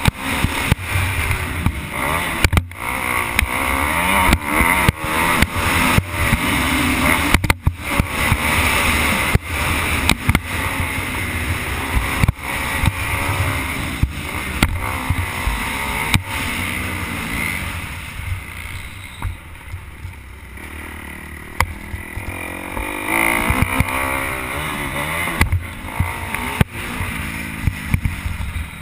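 Motocross bike engine heard from a camera mounted on the bike, revving up and down as the rider works the throttle, with frequent sharp knocks from the rough track. It drops back off the throttle for a few seconds past the middle, then revs up again.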